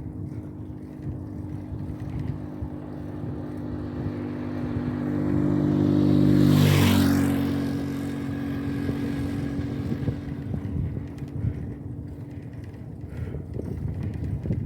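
A motor vehicle passes close by: its engine note grows louder, drops in pitch as it goes past about halfway through, then fades, over steady wind and riding noise.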